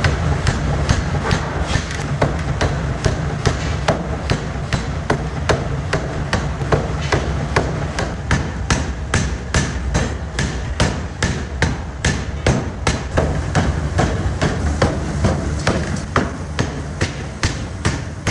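Pneumatic forging hammer striking hot 304 stainless steel in a quick, even series of blows, about three a second, over a steady low machine drone.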